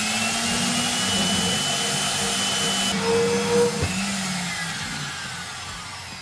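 Small benchtop bandsaw running with its blade cutting through a steel tie-rod adjusting sleeve, a steady motor whine with a hiss of cutting. After about four seconds the pitch falls and the sound fades as the saw slows.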